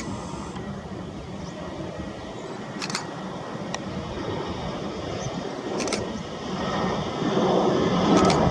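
Jet engine noise from a PIA Airbus A320, a steady rumble that grows louder over the last couple of seconds as the aircraft nears, with a few short clicks.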